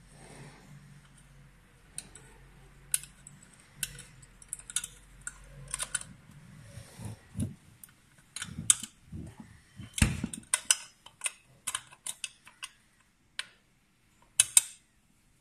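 Irregular clicks and taps of a thin metal rod and fingers handling the red plastic engine cover of a petrol core drill, with a few dull knocks, the clicks coming thicker and louder in the second half.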